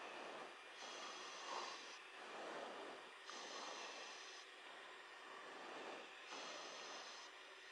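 Faint hiss of an open aircraft radio or intercom channel, swelling softly about once a second, with no voice on it.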